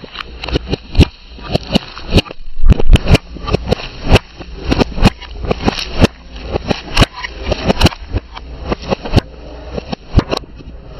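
Car tyre rolling over and crushing crunchy objects: a dense run of sharp, irregular cracks and crunches, several a second, over a low steady hum.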